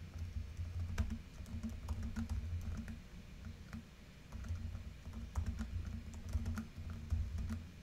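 Typing on a computer keyboard: runs of quick key clicks, with a short pause about three seconds in before the typing resumes.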